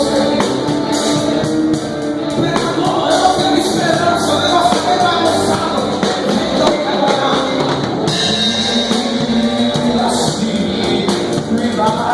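Worship music with a full drum kit keeping a steady beat under singing voices.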